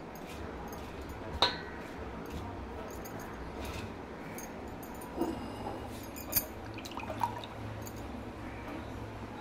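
A few light clinks and knocks of kitchen dishes, a steel plate and a glass bowl, the loudest about a second and a half in, over a steady low hum.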